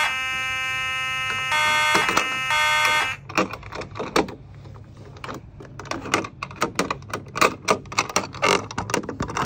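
Fire alarm horns sounding in pulses over a steady tone, in a code-3 temporal pattern, cutting off about three seconds in. Then a long run of sharp plastic clicks and knocks as the Simplex pull station's T-bar handle is worked and reset, the handle sticking partway.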